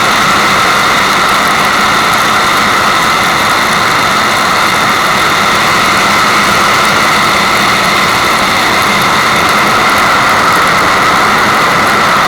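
Steady rushing water, an even hiss that does not change.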